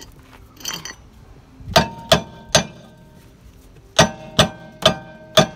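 Hammer striking a 2017 Honda Civic's rear cast-iron brake rotor seven times, in a run of three and then a run of four. Each blow leaves a short metallic ring. The stuck rotor is being knocked loose from the hub.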